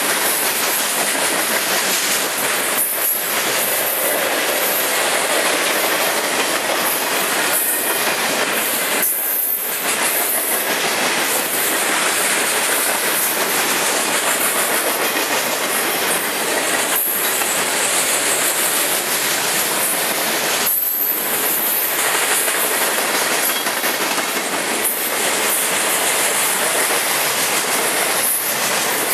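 Freight cars of a mixed freight train passing close at speed: steel wheels clicking over the rail joints in a continuous loud, rushing rumble that dips briefly a few times.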